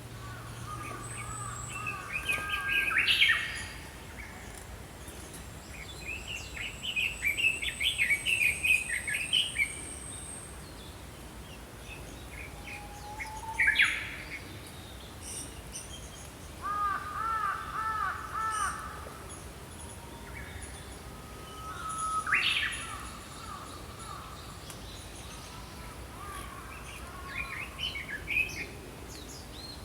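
Small songbirds singing: short chirping and trilling song phrases repeated every few seconds, with a thin, high held whistle through the first ten seconds, over a faint steady outdoor hiss.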